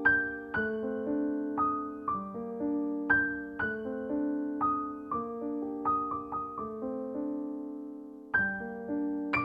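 Background piano music: a slow, gentle melody of single notes over chords, each note struck and fading away. A longer held note dies down near the end before a new phrase starts.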